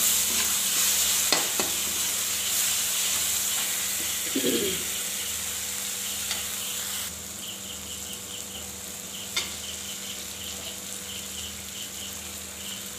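Tomato and spice masala sizzling in oil in a metal kadhai while being stirred with a slotted metal spatula, with a few clicks of the spatula against the pan. The sizzle quietens about halfway through.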